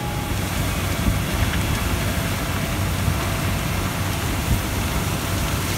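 Fire hose nozzle spraying a steady water stream, a continuous rushing hiss like heavy rain, with a low rumble underneath.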